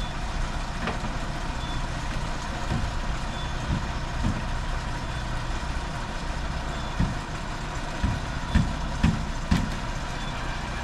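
Heavily loaded lorry's diesel engine running slowly as it turns at full steering lock, with several short low thuds, the loudest three near the end, and faint short high beeps now and then.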